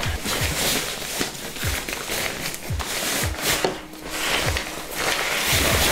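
Nylon fabric rustling and scraping as a packed down sleeping bag is pushed into the bottom of a backpack, over background music with a steady kick-drum beat of about two a second.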